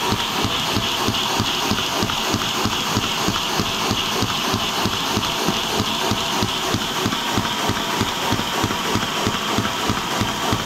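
Lego DOHC model engine running fast: its plastic pistons, cams and valves clatter in a rapid, even knocking rhythm over a steady hiss. At this speed the builder says the exhaust valve still floats.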